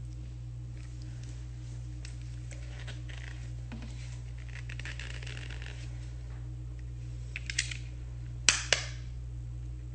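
Long fingernails scratching and pressing at a curling wand's stiff plastic power switch while trying to turn it off: faint scratching and rustling, then a few sharp clicks near the end, the loudest two close together. A steady low hum runs underneath.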